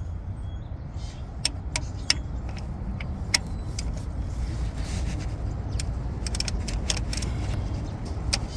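Irregular light metallic clicks and taps of a wrench being worked on the serpentine belt tensioner of a Chevy Suburban's 5.3 V8, levering it to slacken the belt, over a low steady rumble.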